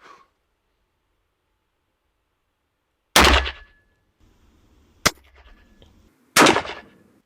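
Rifle shots from a Mosin Nagant rechambered in .500 S&W Magnum firing full-power handloads (53.5 grains of powder, roughly .338 Lapua power). There are two loud, echoing blasts about three seconds apart, with a single sharp crack between them.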